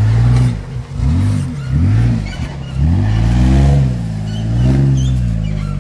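Jeep Wrangler's engine revving up and down in about five swells of throttle as it crawls over rough off-road ground.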